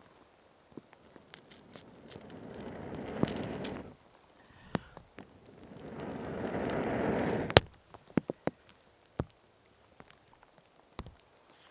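A person blowing hard into the embers of a dying fatwood fire in two long breaths, each building and then stopping sharply, to feed it oxygen. After the second breath the fire gives a loud sharp pop, then a few scattered crackles.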